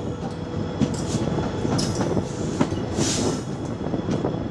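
Passenger train running along the line, picked up outside the moving coach: steady rumble and rush of wheels on rails with irregular knocks over rail joints, and a brief higher hiss about three seconds in.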